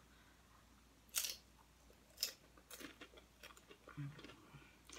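Doritos tortilla chips crunching as they are bitten and chewed: sharp crunches about one, two and three seconds in, then a run of smaller, quieter crunches.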